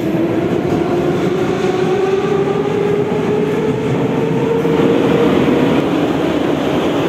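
Metro train running, heard from inside the car: a steady rumble with a whine that rises slowly in pitch as the train picks up speed, then fades near the end.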